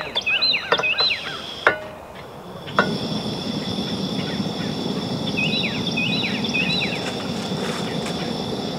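Single-burner propane camp stove on a green propane cylinder being lit: a couple of sharp clicks, then about three seconds in the burner catches with a pop and burns with a steady rushing hiss. Birds chirp in quick series at the start and again partway through.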